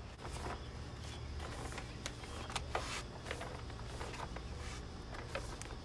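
Plastic bag of diatomaceous earth rustling and crinkling as it is handled and shaken over garden plants: irregular crackles throughout, over a steady low rumble.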